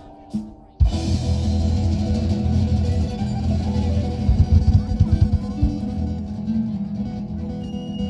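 Live band music led by guitar, with a drum kit underneath, cutting in abruptly less than a second in after a brief silence.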